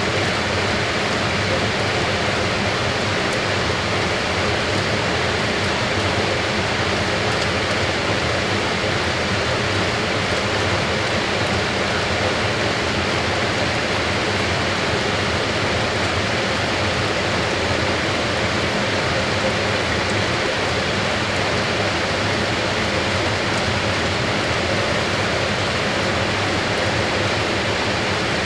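Fisher & Paykel AquaSmart top-load washing machine with its basket spinning fast, a steady, even rush of water and air that does not change.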